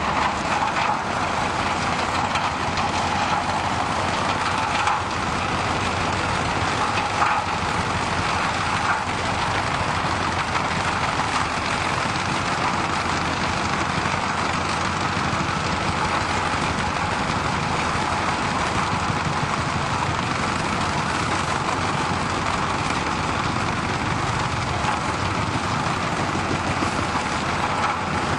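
Heavy machinery running steadily: a carrier machine driving a Fecon Soil Hog rotary soil-milling attachment, a continuous even noise with no breaks.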